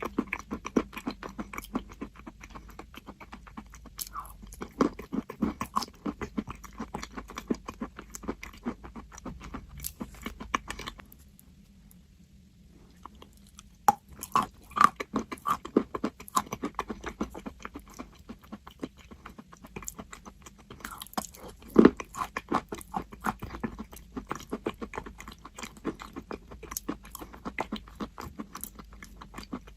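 Crunchy chalk being bitten and chewed: dense, crackling crunches that stop for about two seconds partway through, then start again.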